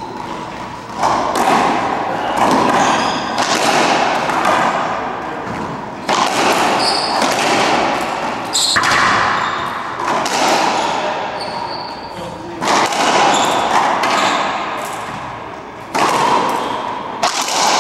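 Racquetball rally: about a dozen sharp cracks of the ball off the racquets and the court walls, each ringing on in the enclosed court, with a few short high squeaks of shoes on the hardwood floor.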